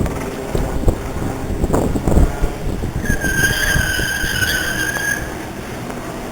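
Budd-built subway car running, heard from inside the car as a steady rumble, with a high steady metallic squeal for about two seconds in the middle, typical of steel wheels squealing against the rail.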